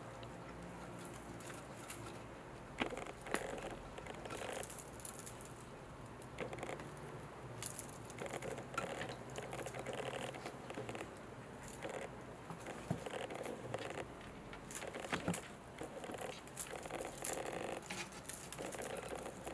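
A kitten's paws and claws moving on a soft blanket: quiet fabric rustling with scattered small taps and scratches at irregular moments.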